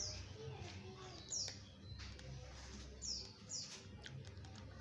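A small bird chirping: four short, high calls, each falling in pitch, spaced unevenly about half a second to a second and a half apart, over a low steady hum and a few faint clicks.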